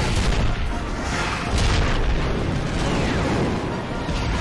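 Battle sound effects from animation: a dense run of explosions and booms from anti-aircraft fire bursting around Republic gunships, over a deep continuous rumble.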